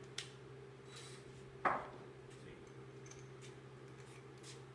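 Handling of a drill and Forstner bit as the bit is fitted to the drill: a few light clicks and one sharp knock about a second and a half in, over a steady low hum.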